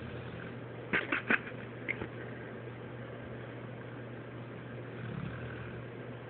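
Boxer mix dog snoring in deep sleep, one slow low snore swelling about five seconds in, over a steady low hum. A quick cluster of sharp clicks sounds about a second in.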